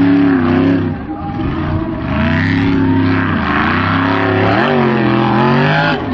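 Formula Offroad buggy's engine running at high revs, the pitch falling and rising again and again, with a brief drop about a second in. The engine note cuts off abruptly near the end.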